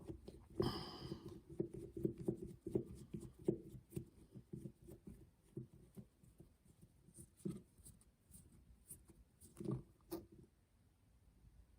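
Light clicks and taps of a screwdriver and small metal carburetor parts being handled on a bench as an adjustment screw is backed out and removed from an outboard carburetor.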